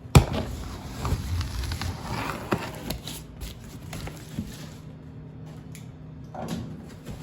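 Cardboard shipping box of a heavy bench sander being handled and opened: a sharp knock at the start, then scattered thumps, scraping and rustling of cardboard and packing, quieter in the middle with more handling near the end.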